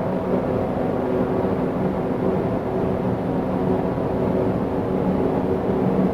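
A steady, unbroken low drone with a clear hum tone and overtones, like a distant engine that keeps running. The recordist likens it to a motor glider or a lawn mower and takes it for a solar storm hitting Earth's magnetic field, or possibly for high-voltage lines.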